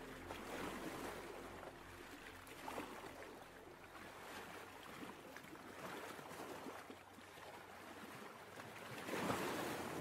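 Ocean surf: waves washing in and drawing back as a soft rushing noise that swells several times, loudest near the end.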